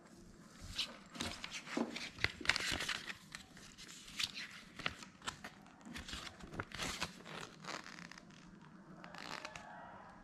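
Paper and plastic packaging rustling and crinkling as it is handled: a run of quick crackles and clicks, busiest in the first two thirds, with a short burst again near the end.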